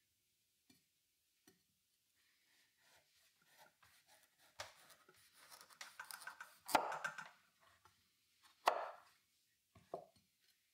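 Chef's knife cutting the rind off a butternut squash on a wooden cutting board: scraping, slicing strokes through the hard skin, broken by a few sharp knocks of the knife on the board, the loudest about seven seconds in.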